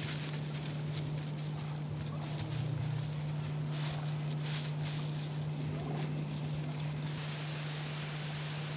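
Wild turkeys calling as they move through dry leaf litter, with bursts of rustling a few seconds in, over a steady low hum. Near the end a steady hiss takes over.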